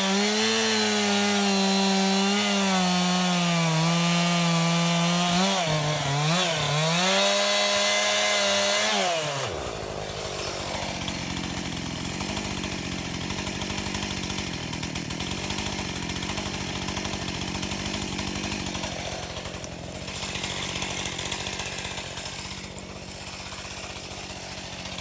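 Two-stroke chainsaw cutting through wood at high revs, its pitch wavering under load. About ten seconds in it drops to a quieter, choppy idle.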